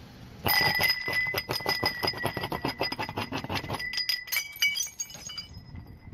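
Glass tumblers cracking and clinking as a car tyre rolls over a row of them: a rapid run of sharp cracks and clinks with a ringing glassy tone, starting about half a second in and thinning out after about four and a half seconds.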